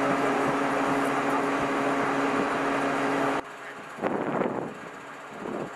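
Construction machinery engine running with a steady hum, which stops abruptly about three and a half seconds in, leaving quieter site noise with a brief louder sound at about four seconds.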